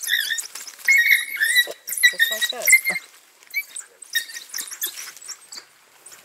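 A pack of African wild dogs squabbling over a small antelope kill, giving high-pitched chirping calls, with scuffling in the grass. The calls are densest and loudest in the first three seconds, then come fewer and fainter.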